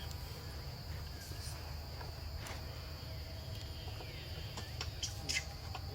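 Steady high-pitched drone of insects. There is a low rumble underneath and a few short sharp sounds near the end.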